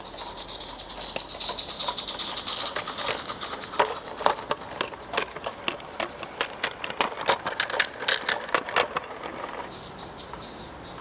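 Live-steam garden-railway locomotive passing close with a steady hiss of steam, then a quick run of sharp clicks and clatter as its train of wagons rolls by over the track, dying away near the end.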